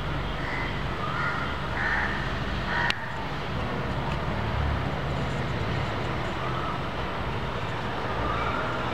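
Steady background traffic rumble. A high two-note alternating tone, like a distant hi-lo siren, sounds during the first two seconds and again near the end. One sharp click comes about three seconds in.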